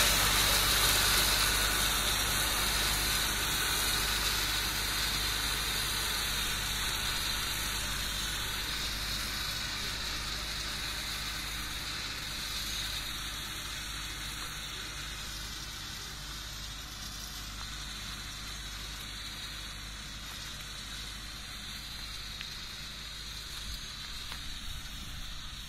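Tractor engine running steadily while a 1.75 m rotary drum mower cuts alfalfa, a low engine hum under a high, even whir, growing steadily fainter as the tractor drives away.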